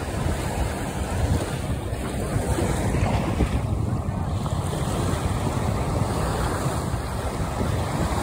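Small waves washing onto a sandy beach, with wind buffeting the microphone in a steady low rumble.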